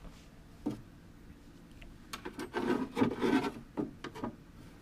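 Lock cylinder and its bracket being pushed and worked into a hard motorcycle saddlebag by hand: rubbing and scraping of the parts with scattered clicks. The scraping is busiest in the second half.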